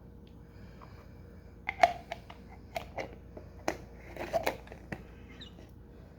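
A string of sharp clicks and knocks from fermentation jugs and their lids being handled, starting about two seconds in and stopping near the five-second mark; the first knock is the loudest.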